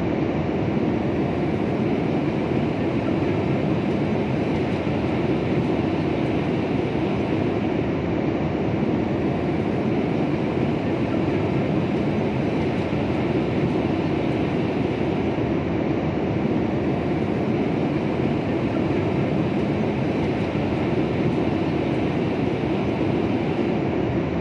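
Steady cabin noise of an airliner in flight: an even, unbroken rumble of engines and airflow.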